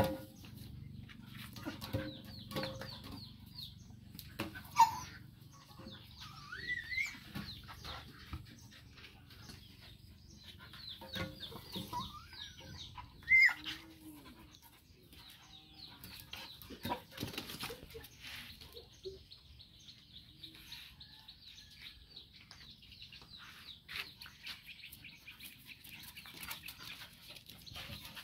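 Yard ambience of chickens clucking and small birds chirping. Scattered knocks and scuffles come from a dog and a macaque play-wrestling on a tiled table, with two short louder sounds about five and thirteen seconds in.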